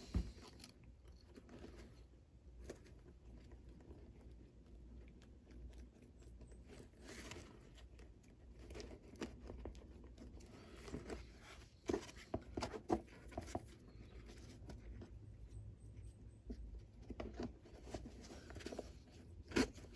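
Faint, irregular rasps and clicks of a boot welt being stitched to the leather uppers and footbed, with thread drawn through the old holes.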